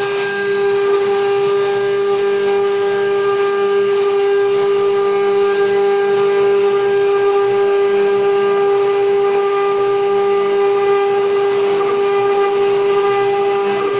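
Multi-spindle CNC wood router with its spindles running, a steady high-pitched whine with overtones, as the bits carve into wooden boards.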